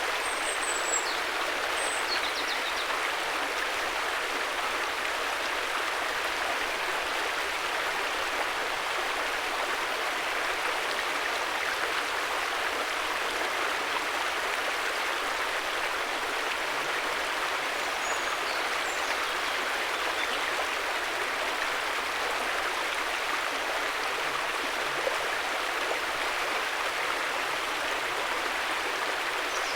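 Steady rushing and burbling of a flowing river, with a few faint, short high chirps now and then.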